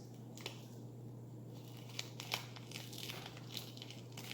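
Faint crinkly scraping and clicking of a plastic spoon scooping and measuring out a slime ingredient, with a few sharp ticks about two to two and a half seconds in, over a steady low hum.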